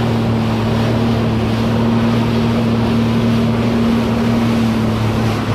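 Jet ski engine running steadily at a constant hum, over a wash of water and wind noise.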